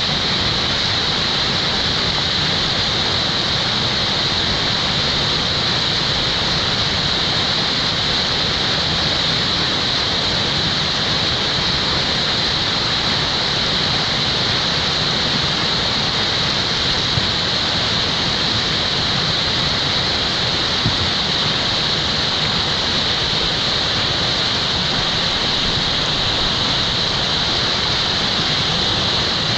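Whitewater rushing through a river play hole: a loud, steady roar of churning water with no let-up.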